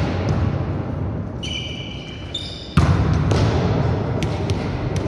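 Volleyballs being struck and bouncing on a sports-hall floor, scattered knocks in a large echoing hall. There is a brief high squeak about halfway through, and the general din comes back suddenly just after it.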